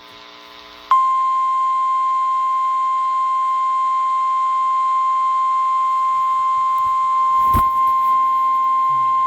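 NOAA Weather Radio warning alarm tone: a single steady 1050 Hz beep that switches on abruptly about a second in and holds without a break. A brief click comes near the end. The tone signals that a warning broadcast, here a severe thunderstorm warning, is about to follow.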